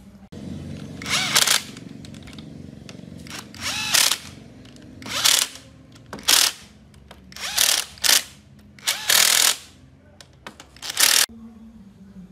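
Handheld cordless power driver running bolts into the front plate of a truck engine block, in about eight short bursts, some rising in pitch as the motor spins up.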